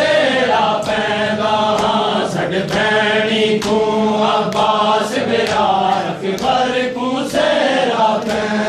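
A group of men chanting a noha (Shia lament) in rhythm, with the beat of hands slapping bare chests in matam, roughly once or twice a second.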